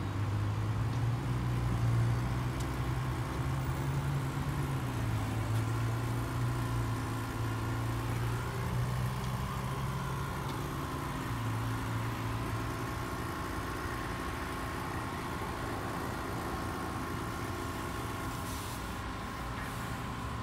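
Mark VII ChoiceWash XT automatic car wash running on a car: a steady mechanical hum from its spinning cloth brushes and motors, with a low drone that eases off about halfway through and a faint steady whine above it, muffled through the bay's glass.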